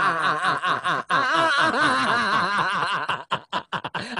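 A man laughing hard in a long run of wavering laughter. About three seconds in, it breaks into short bursts with gaps between them.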